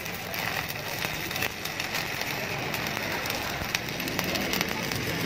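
Electric arc welding on the steel shell of a refrigerator compressor, a steady hiss with a dense crackle of fine clicks, as the shell is welded shut after repair.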